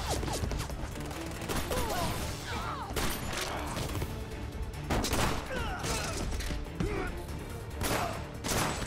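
Film battle sound effects: volleys of gunfire and sharp impacts over background music.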